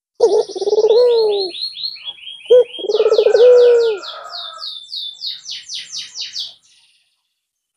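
Albino Barbary dove (puter) cooing twice: each coo is low and rolling and falls in pitch at the end. Another small bird chirps rapidly, about five high chirps a second, and stops about a second before the end.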